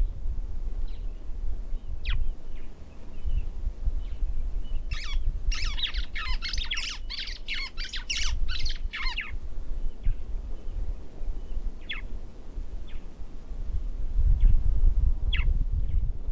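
Wild birds calling: a quick run of about a dozen harsh, downward-sliding squawks in the middle, with single short calls now and then, over a steady low rumble.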